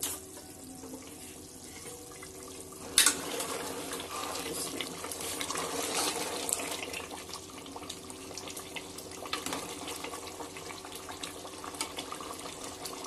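A steel ladle stirs thin meat curry in an open aluminium pressure cooker, the liquid sloshing, with small scrapes and knocks against the pot. About three seconds in there is a sharp click as the gas burner is lit, and after it a steady burner sound underlies the stirring.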